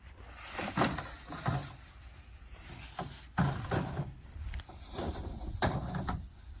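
A handful of sharp clunks and knocks with rustling between them, like doors, compartments and bags being handled while things are put away.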